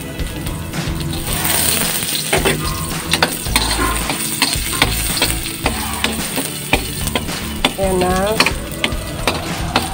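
Chopped garlic sizzling in hot oil in a wok, with a spatula stirring it and clicking and scraping against the pan many times.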